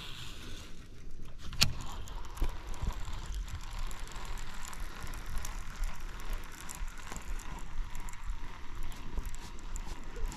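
Low wind rumble on the microphone with scattered small clicks and knocks of fishing gear in a boat, and one sharper click about a second and a half in.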